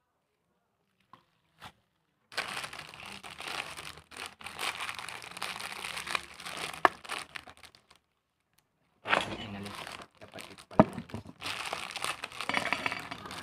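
Crinkly plastic snack wrappers being handled and torn open, in two spells of rustling about two seconds in and again after a short pause, with a few sharp crackles.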